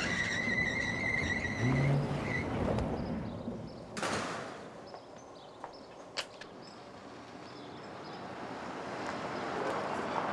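Pickup truck driving past, with a high steady tone over the first two seconds. About four seconds in comes a short rush like a door opening, and a sharp click follows two seconds later. From about seven seconds the truck's engine and tyres on gravel grow steadily louder as it pulls up.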